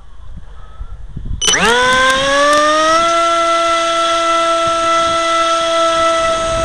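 Zagi v4 flying wing's motor and propeller throttling up, heard through its onboard camera: a whine that starts suddenly about a second and a half in, rises quickly in pitch, then holds steady at full power. Low wind rumble on the microphone underneath.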